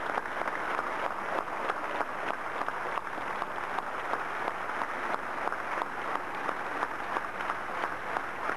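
A crowd applauding steadily: dense, continuous clapping with no break.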